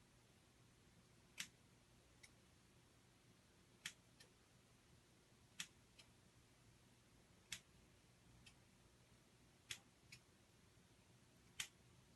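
Sharp single clicks about every two seconds, six in all, each followed a fraction of a second later by a fainter click, over near silence.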